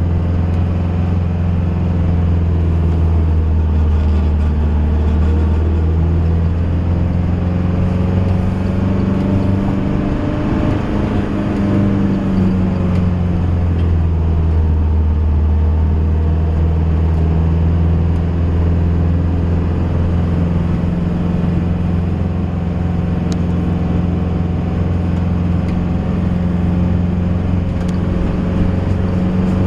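Camper van engine running steadily under load as it climbs a steep hill. Its note shifts up and back down once about ten seconds in.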